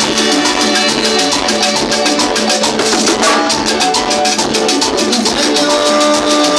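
Live Latin dance band playing: a metal shaker keeps a fast, even rhythm over drum kit, electric guitar and saxophones holding notes.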